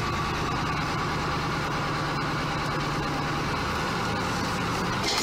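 Heavy vehicle's engine running steadily at low revs, an even drone.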